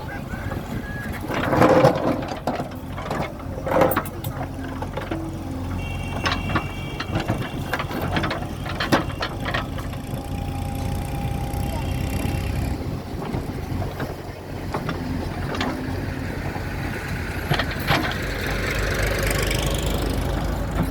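JCB 3DX backhoe loader's diesel engine running steadily under load while the backhoe digs soil, with several sharp knocks, the loudest about two and four seconds in.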